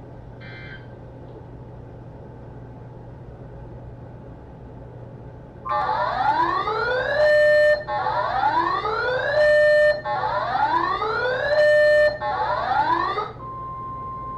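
Weather radio static with a low hum, then an emergency alert sequence: three loud whooping sweeps rising in pitch, each capped by a short harsh burst, followed about 13 seconds in by a steady single-pitch tone, the NOAA Weather Radio 1050 Hz warning alarm tone that introduces the next warning.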